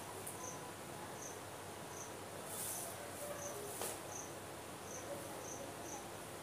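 A cricket chirping: short, high chirps repeating about once or twice a second over a faint steady hiss.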